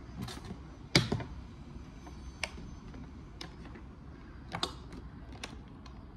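Light clicks and knocks from a flat-iron hair straightener being handled and set on a glass tabletop. There are about half a dozen scattered clicks, and the loudest knock comes about a second in.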